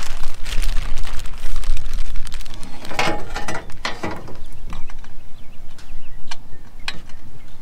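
Clear plastic bag of small metal mounting hardware rustling while bolts and washers clink together as they are picked out by hand, heard as irregular sharp clicks.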